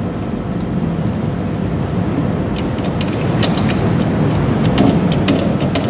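Steady low machine hum, with a run of short metal clicks and knocks from about two and a half seconds in as the steel bottle jack and its pump handle are fitted and set in place.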